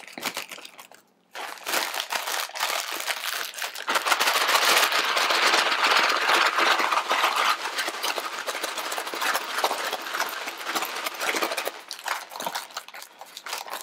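Packet of crushed dry ramen noodle snack being shaken hard, the broken noodle pieces rattling inside to coat them with seasoning powder. The fast, continuous shaking starts about a second in and eases off near the end.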